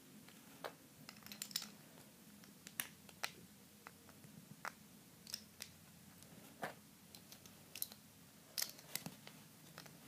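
A dozen or so faint, irregular clicks and small knocks of a Beyblade spinning top's metal and plastic parts being fitted and twisted together by hand.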